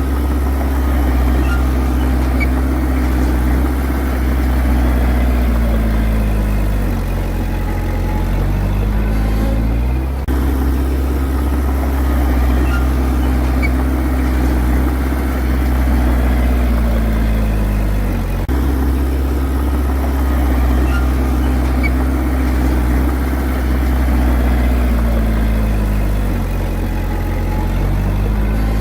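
Bulldozer's diesel engine running hard, its pitch sagging slowly three times as it lugs down under load and snapping back up each time the load comes off.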